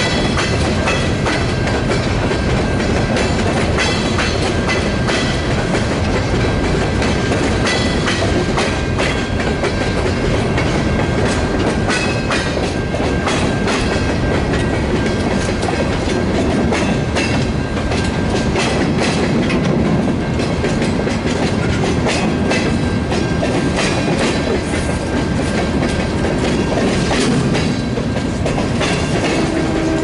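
Cars of a long mixed freight train rolling past close by: a steady rumble of steel wheels on rail with clickety-clack as the wheels cross rail joints.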